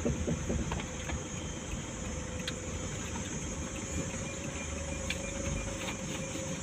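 Vehicle engine running steadily with a low rumble, a faint steady whine and a few light knocks.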